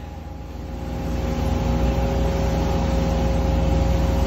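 Sea Ray motorboat's engine running under way at speed, a steady hum over a low rumble that grows louder over the first second and a half and then holds steady.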